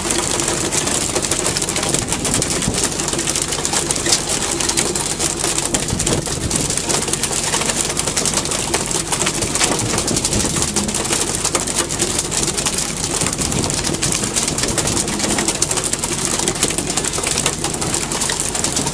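Steady running noise of a fishing boat at sea: the engine drone mixed with sea water rushing along the hull.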